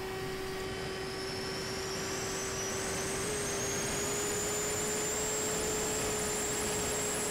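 The Ranger FPV plane's electric motor and propeller running at cruise power, heard from on board over a steady rush of air. A high whine climbs in pitch over the first few seconds, then holds steady.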